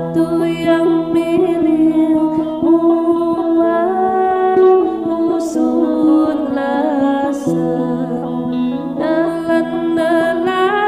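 Several sape, the carved boat-shaped lutes of Borneo, plucked together: a melody picked over a steady drone of held low notes.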